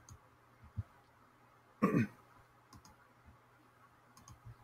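A few faint, sharp computer mouse clicks while elements are selected in a web page inspector, with one short wordless vocal sound from the narrator about two seconds in, falling in pitch.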